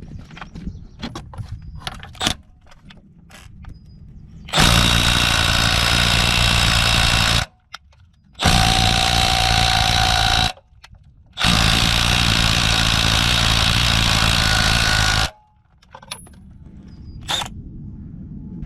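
Milwaukee M12 Fuel cordless right-angle impact wrench hammering in three runs of about three, two and three and a half seconds, each starting and stopping abruptly. Light clicks and metal knocks of the socket and tool being handled come before and after.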